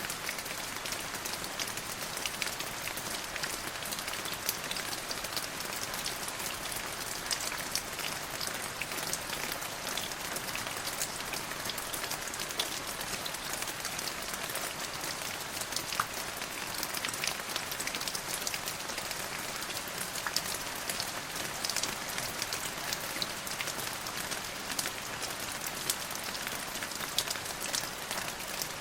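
Steady rain falling on a surface, an even hiss with many fine ticks of individual drops.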